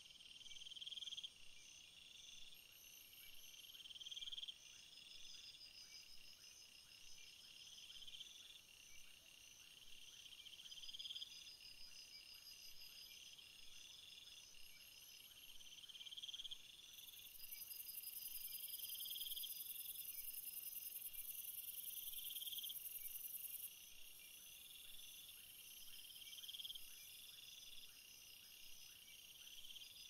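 Faint night chorus of crickets and other insects: several overlapping songs, with a swelling chirp repeating about every second and a half and fast pulsed trills above it. A loud, shrill high-pitched buzz joins for about seven seconds midway, then drops out.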